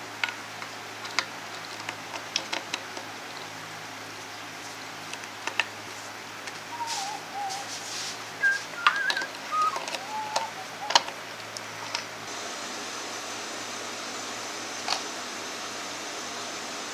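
Light clicks and taps from guitar wiring parts being handled and fitted, with a person whistling a few short wavering notes in the middle. A steady low electrical hum runs underneath and shifts about two-thirds of the way through.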